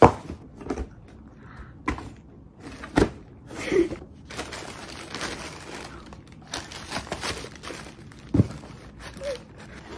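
Tissue paper rustling as a cardboard shoe box is opened and the wrapping pulled back, with a few knocks of the box and lid.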